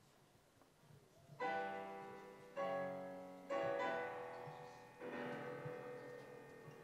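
Digital piano playing slow chords: four chords struck a second or so apart, each left to ring and fade, the last held, after a quiet first second.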